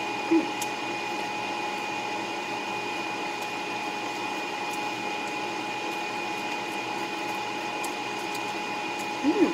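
Steady mechanical hum with a constant high tone, under faint ticks of a knife slicing sushi rolls on a wooden cutting board. A short voice sound comes about half a second in, and a brief rising one comes near the end.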